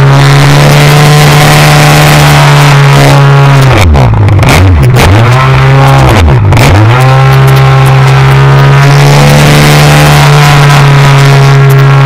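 RC aerobatic biplane's engine running at a steady high pitch, heard up close from on board with a noisy rush over it. Twice, about four seconds in and again two seconds later, the note drops sharply and climbs straight back as the throttle is pulled back and opened again.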